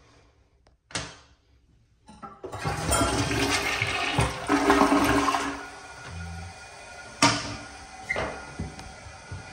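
Glacier Bay toilet flushing: a loud rushing swirl in the bowl starts about two seconds in and eases after a few seconds to a quieter steady hiss of water. A sharp knock comes near the end.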